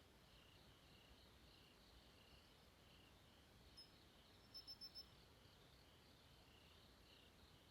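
Crickets chirping faintly in a steady, even pulse on a very quiet night. A little past the middle comes a short run of four quick, high, clear pips.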